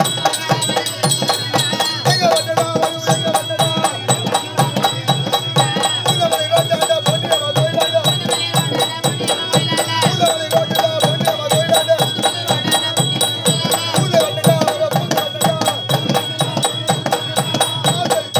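Folk dance music from a live koothu ensemble: a hand drum plays a fast, even beat of about five strokes a second under a wavering melody that comes back in repeated phrases.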